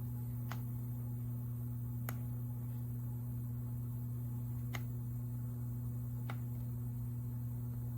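A steady low electrical hum, with four faint, sharp ticks spaced irregularly a second or two apart.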